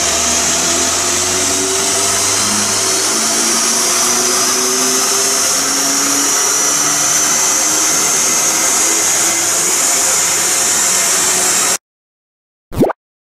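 Opel Astra J OPC, with catless downpipe and remap, running on a chassis dynamometer: a steady loud rush of engine, rollers and airflow, with a high whine that rises slowly in pitch. The sound cuts off abruptly near the end, followed by one brief short sound.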